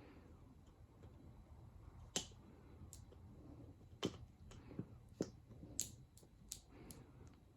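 Irregular light clicks and taps, about nine of them scattered over several seconds, from cats playing with a bare cat-teaser stick whose toy has come off: the stick knocking about as it is batted.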